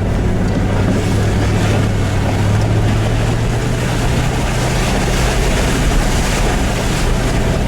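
Land Rover P38's V8 engine running steadily with a constant low drone, under a broad rush of noise.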